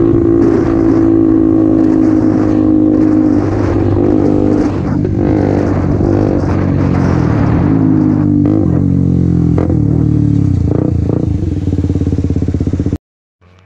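KTM Duke 125's single-cylinder four-stroke engine through a RadicalRacing aftermarket exhaust, heard from the rider's seat: held at high revs, then the revs fall off as it slows, with a few sharp exhaust pops (backfires) on the overrun. The sound cuts off suddenly near the end.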